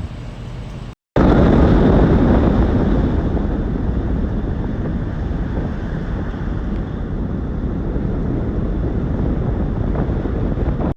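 Loud, steady wind noise buffeting the microphone, a deep rumbling hiss that cuts in abruptly after a short gap about a second in.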